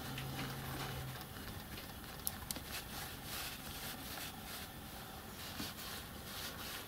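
Quiet handling of a miniature lathe's compound slide as its small ball-handled clamp lever is worked by hand. There are a couple of light clicks about two and a half seconds in, over a low steady hum during the first second.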